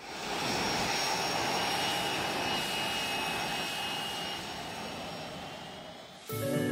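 Steady roar of engines and airflow heard inside a passenger airliner's cabin in flight, with faint high steady tones; it fades and cuts off near the end as soft music begins.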